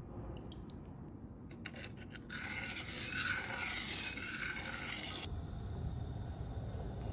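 A few light clicks, then a measuring spoon stirring and scraping around the bottom of a saucepan of soy-sauce seasoning for about three seconds. It cuts off suddenly, leaving a low steady hum.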